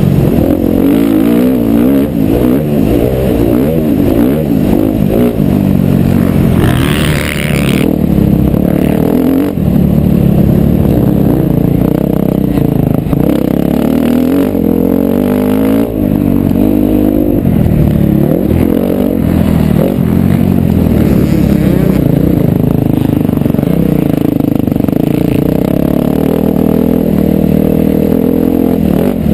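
2011 KTM 350 XC-F's single-cylinder four-stroke engine being ridden hard, its pitch rising and falling again and again as it revs up through the gears and backs off. There is a short burst of hiss about seven seconds in.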